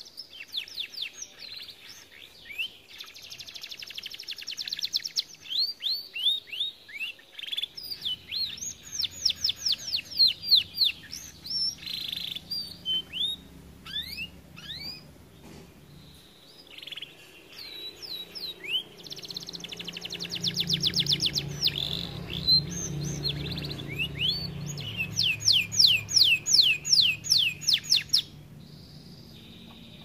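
Canary singing in long phrases of fast trills and runs of repeated downward-sweeping whistles. The song stops abruptly near the end. A low hum sits in the background through most of it.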